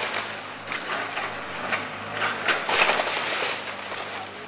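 Tracked excavator's diesel engine running steadily while its bucket breaks into a wood-frame house wall, with repeated cracking and crunching of splintering wood and siding, loudest a little under three seconds in.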